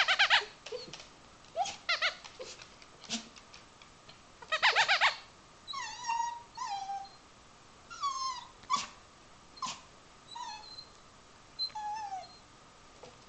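Small long-haired dog whining: a string of short whimpers that fall in pitch, with louder, sharper yelps at the start and again about five seconds in. These are begging whines.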